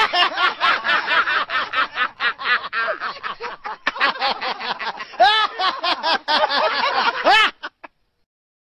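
A meme laughter sound effect: a person snickering and cackling in quick, repeated bursts of laughter, with a few rising-and-falling squeals. The laughter stops suddenly about a second before the end.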